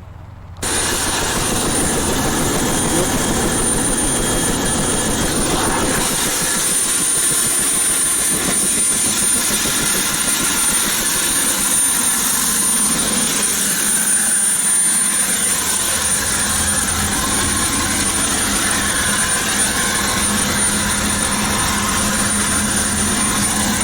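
Helicopter engine and rotor running: a loud, steady rush with a thin high whine, starting abruptly about half a second in.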